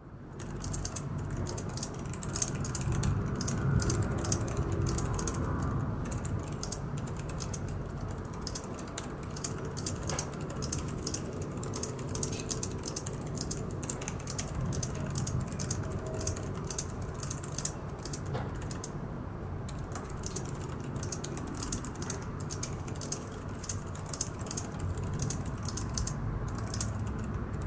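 Continuous typing on a laptop keyboard with Cherry MX Ultra Low Profile tactile mechanical switches, equivalent to MX Brown: a dense, fast clatter of key clicks.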